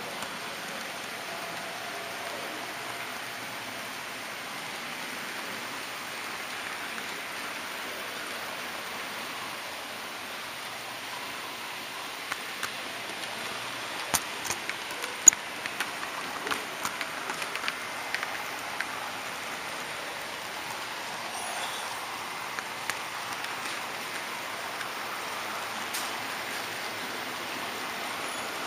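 Steady rushing noise of an HO-scale model train running along its track, heard from a camera riding on the train. About halfway through comes a run of sharp clicks as the wheels pass over points and rail joints.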